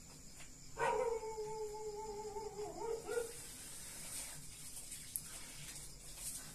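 A long animal call: one drawn-out note of a little over two seconds that sags slightly in pitch and ends with a short upward wobble, with a faint steady high hum underneath.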